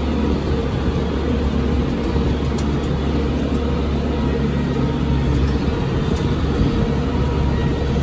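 New Holland T5060 tractor's diesel engine running at a steady working speed, heard from inside the cab, with an even hum.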